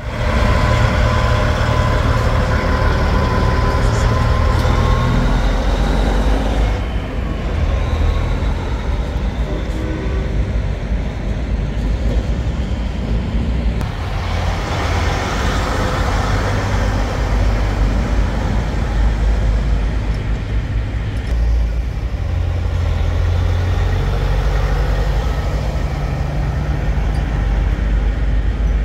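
Diesel semi-truck engine running as the tractor-trailer rolls slowly past, a steady deep rumble. The trailer goes by close near the end.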